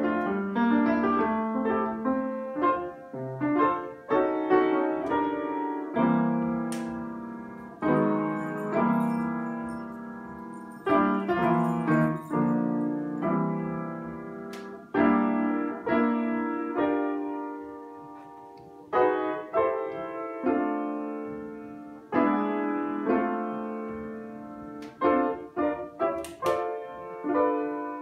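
Upright piano played by hand: an unhurried tune of struck chords, each ringing and fading before the next.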